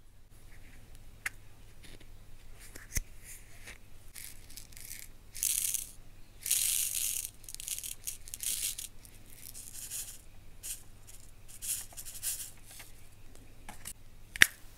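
Round diamond-painting drills rattling and shifting inside a clear plastic multi-compartment storage box as it is handled, with the plastic lids clicking. A sharp plastic click near the end is the loudest sound.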